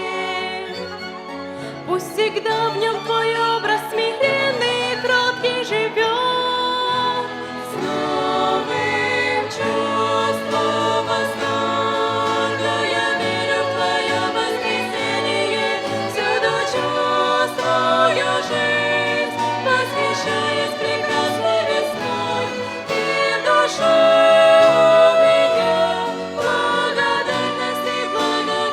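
Vocal ensemble singing a slow hymn, accompanied by a violin and instrumental backing.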